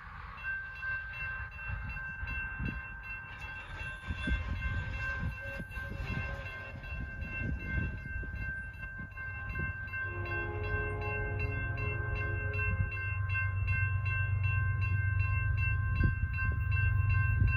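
Railroad crossing bell starts ringing as the signals activate, a steady run of rapid strokes. About ten seconds in, the approaching Union Pacific locomotive's horn sounds in long blasts, and its low rumble grows louder toward the end.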